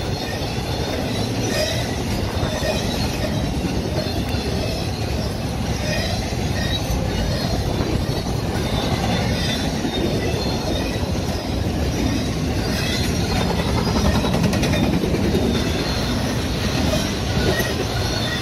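Intermodal freight train cars (trailers on flatcars and double-stack container cars) rolling steadily past, steel wheels running on the rails with a continuous rumble and intermittent high-pitched wheel squeal.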